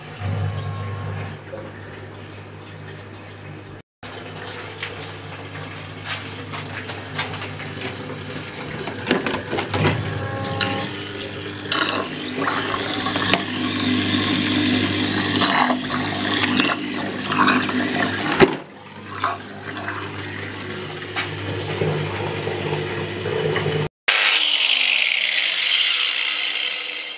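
Water pouring out of a hose into a bucket, splashing, over a steady low hum. Near the end an angle grinder runs, its pitch falling steadily as it spins down.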